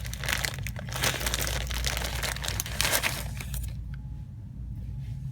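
Plastic packaging crinkling and rustling as it is handled, dense and crackly for about three seconds before dying away to a faint steady low hum.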